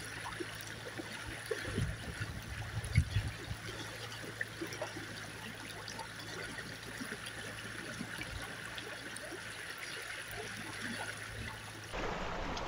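Shallow river running over stones, a steady rushing and trickling of water, with a few low thumps about two to three seconds in.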